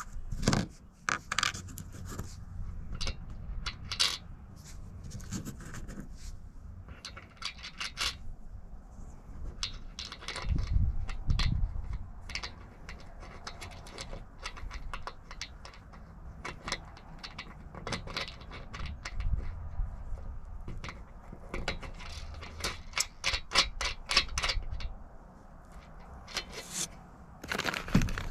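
Washer and hex nut being put on by hand and spun down a bolt on an aluminum Z bracket: a run of small metal clicks, taps and scrapes, with a louder rustle near the end.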